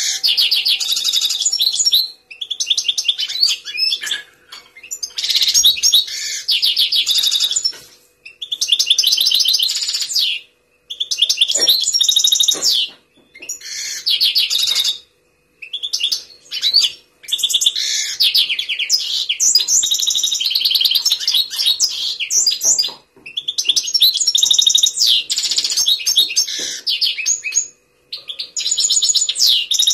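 European goldfinch singing steadily: rapid twittering song phrases in bouts of two to four seconds, broken by short pauses.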